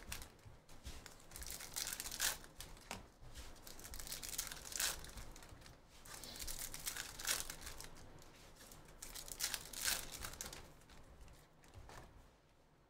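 Foil wrappers of Bowman University Chrome trading-card packs torn open and crinkled by hand, with the cards handled between them: a string of short crackling rustles, one every second or two.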